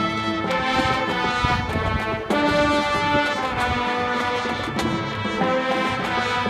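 High school marching band playing a brass-led passage of its competition show, with sustained chords that shift several times.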